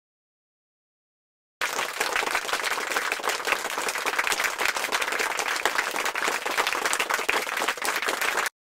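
Silence, then about a second and a half in, applause starts abruptly, a dense crackle of many hands clapping at once, and runs evenly until it cuts off suddenly just before the end.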